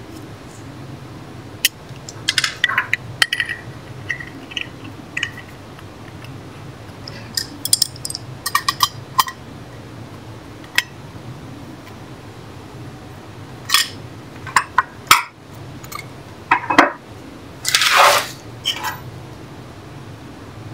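Brass pipe fittings, pressure gauges and a wrench clicking and clinking against each other and the tabletop as the fittings are threaded together. Scattered sharp clicks and short rattles, the longest a scraping rattle about eighteen seconds in, over a low steady hum.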